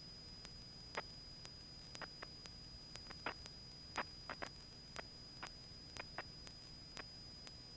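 Faint hiss of a light aircraft's headset intercom line with a steady high-pitched whine, regular ticks about twice a second and scattered louder clicks; the engine itself is hardly heard.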